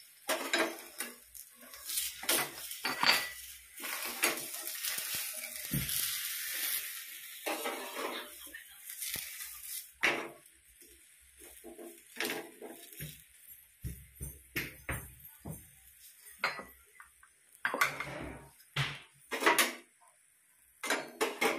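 Steel kitchen utensils clinking, knocking and scraping against a griddle and a bowl: a string of separate sharp clinks throughout, with a hiss over roughly the first half.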